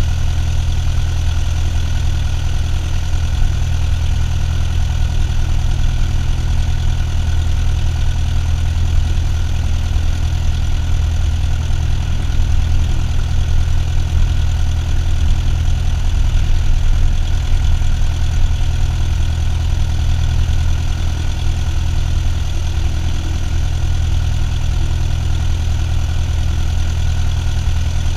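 Cessna 172's piston engine and propeller running steadily at low power as the plane taxis and lines up on the runway, a steady low drone with no rise in pitch.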